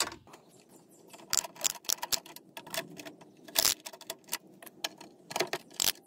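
Socket ratchet wrench clicking in short, irregular runs as it backs a 5/16 bolt out of a lawnmower engine's shroud.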